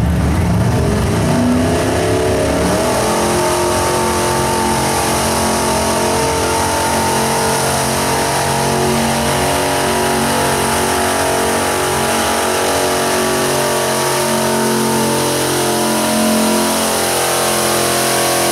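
Full-size pickup truck engine held at high revs under heavy load while pulling a weight-transfer sled. The revs climb over the first few seconds, then stay high and steady.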